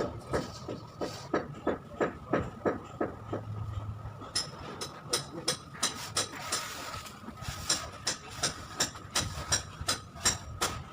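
Rhythmic knocking, about two to three sharp knocks a second, with a faint steady high tone underneath.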